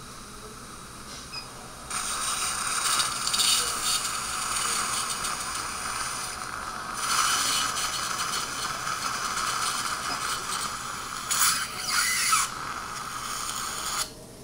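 Dental implant motor running its contra-angle handpiece at low speed, driving a OneQ-HA implant fixture into the upper premolar bone. The mechanical whirr starts about two seconds in, swells a few times and cuts off near the end as the implant seats.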